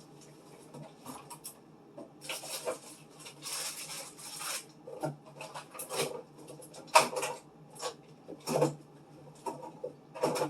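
Food containers and packages being handled and set down in a refrigerator: scattered knocks and clatter, with a stretch of rustling or scraping between about two and four and a half seconds in. A steady low hum runs underneath.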